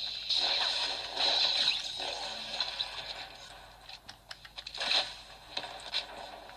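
Rustling and scraping of packaging being handled during unboxing: louder in the first couple of seconds, then softer, with a short louder scrape about five seconds in.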